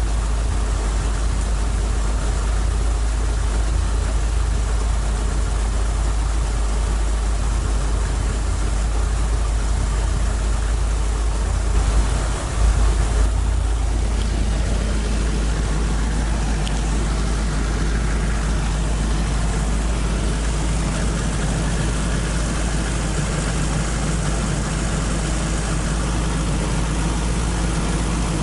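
Toyota AE86's 4A-GE twin-cam four-cylinder engine idling steadily. About halfway through there is a brief louder surge, after which the idle note settles slightly changed.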